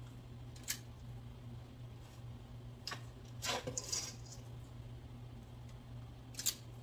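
A metal portion scoop scraping and clicking against a stainless steel mixing bowl while thick cornbread batter is scooped out: a few short clicks, a longer scrape about halfway through, and a sharp click near the end, over a steady low hum.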